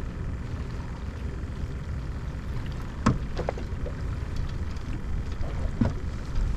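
Steady low rumble of wind and water around a small skiff, with a few light clicks or knocks about halfway through and one more near the end.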